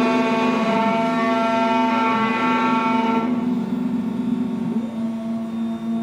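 Automatic key cutting machine's spindle motor whining steadily as its end-mill cutter mills the track of a Honda Accord laser key blank, with a hiss of metal cutting over the hum. The cutting hiss thins out about three seconds in, and a short gliding whine follows near the end as the cutter moves.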